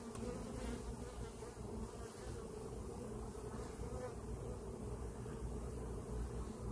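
Honeybees buzzing in a steady drone around an opened hive during a frame inspection.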